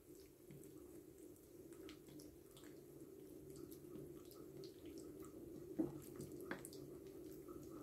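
Faint wet squishing and light ticks of hands rolling and pressing a stuffed raw chicken thigh on a plate, with two sharper clicks a little after halfway, over a steady low hum.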